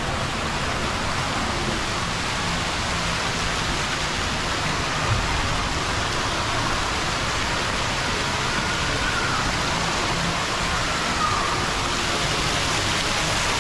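Steady rushing noise inside a passenger airliner's cabin, engine and airflow noise blended into an even hiss with no breaks.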